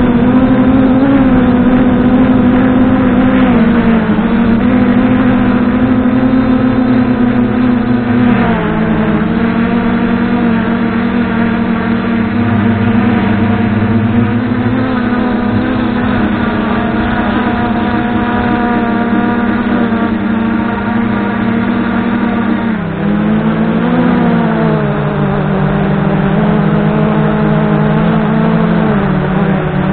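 MJX Bugs 2W quadcopter's brushless motors and propellers whining steadily in flight, heard close up from the action camera it carries. The pitch dips and recovers three times as the throttle changes.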